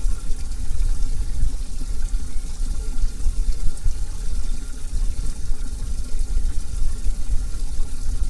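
Steady running, splashing water over a low rumble.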